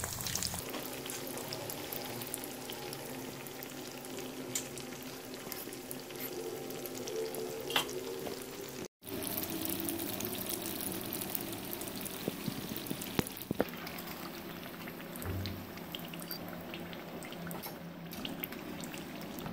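Kachoris deep-frying in hot ghee in a karahi: a steady sizzle with many small crackles and pops. The sound cuts out for an instant about nine seconds in.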